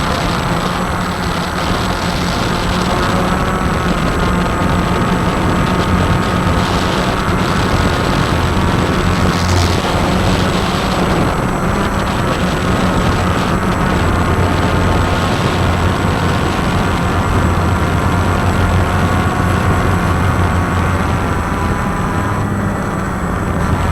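Walkera QR X350 quadcopter's electric motors and propellers buzzing steadily in flight, their pitch wavering slightly.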